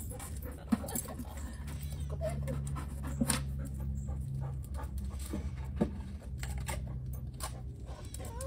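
A dog panting, with scattered light clicks and a low hum that runs for a few seconds, stops, and comes back briefly.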